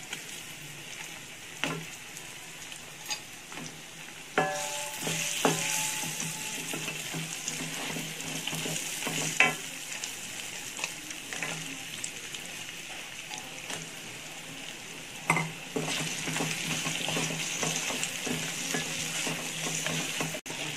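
Crab pieces sizzling in hot oil in a frying pan while being stirred, with a steady frying hiss that grows louder about four seconds in. Sharp knocks and short clinks of utensils against the pan come every few seconds.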